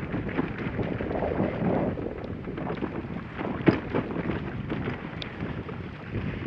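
Dog sled moving over a snow trail: steady scraping hiss of the runners with wind buffeting the microphone, and one sharp knock a little over halfway through.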